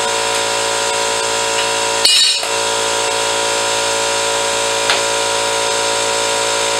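Air compressor running with a steady hum. A brief hiss of air comes about two seconds in and a light click near five seconds, as an air-line impact wrench is picked up and readied.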